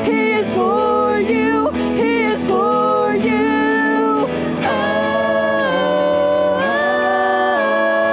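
A live worship band playing a slow contemporary worship song, with male and female voices singing together over keyboard and electric guitar. About halfway in, the voices move from a moving sung line to long held notes.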